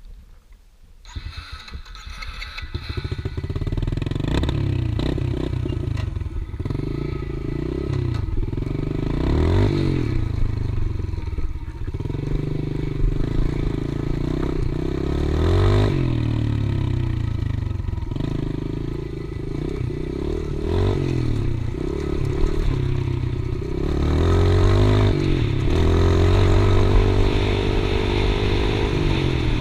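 Yamaha TT-R110E's 110cc four-stroke single-cylinder engine being ridden, with its revs rising and falling as the throttle opens and closes. The engine comes in about a second in and builds over the next two seconds.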